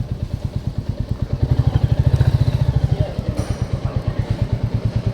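Royal Enfield motorcycle engine running with an even, rapid thump, about ten beats a second, louder for a moment from about a second and a half in.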